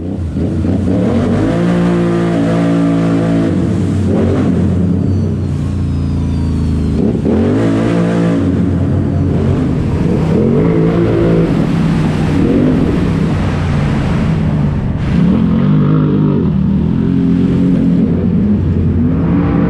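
A Can-Am Renegade XMR 1000R's V-twin engine, breathing through an RJWC Mud Edition dual exhaust, revs up and down over and over while riding, echoing off the concrete walls of a tunnel.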